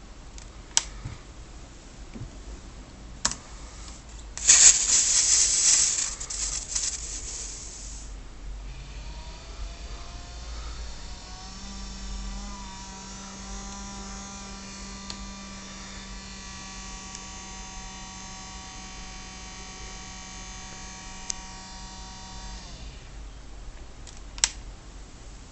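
Computer waking from sleep under Ubuntu: a few clicks, a short burst of very loud fan noise, then an electronic whine of several tones that rise and then hold steady over a low hum for about thirteen seconds before cutting off suddenly. The whine is the abnormal noise that began after the switch to Ubuntu. The loud fan is a long-standing defect of the machine.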